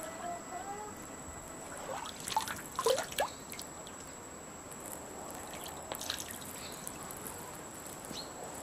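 A few short hen clucks, loudest between about two and three seconds in, over quiet garden ambience with scattered light ticks and a faint, steady high tone.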